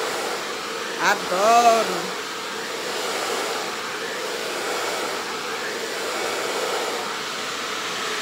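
Handheld hair dryer fitted with a diffuser, running steadily: an even rushing blow with a faint hum.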